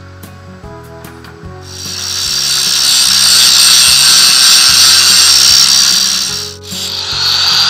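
Angle grinder grinding steel: a loud, steady high-pitched hiss that starts about a second and a half in, drops out briefly near the end and then picks up again, over background music.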